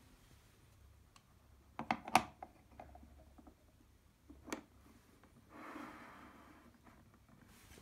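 Handling of a die-cast aluminium enclosure: a quick cluster of sharp metallic clicks as the panel lid is fitted onto the box, a single knock a couple of seconds later, then about a second of soft rubbing as the box is moved on a wooden table.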